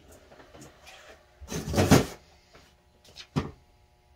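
Metal carburetor parts and a tool being handled on a workbench: a clattering shuffle about one and a half seconds in as the carburetor body is moved, then a sharp click and a few lighter taps.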